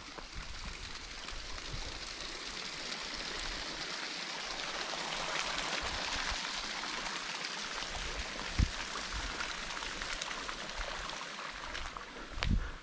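Steady rushing of flowing water, a stream-like wash that swells a little toward the middle. A dull thump comes a bit past halfway and a louder one near the end.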